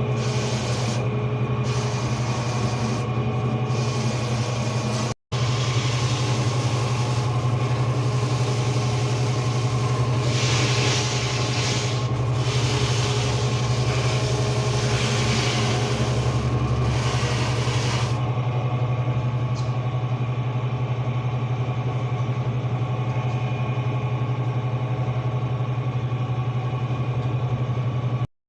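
Sneaker-washing machine running: a steady motor hum with a hiss over it that swells and fades, the hiss dropping away about eighteen seconds in. The sound cuts out for an instant about five seconds in.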